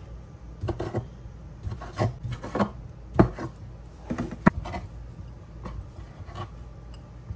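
Kitchen knife slicing a sausage on a wooden cutting board: irregular knocks of the blade reaching the board, with some scraping.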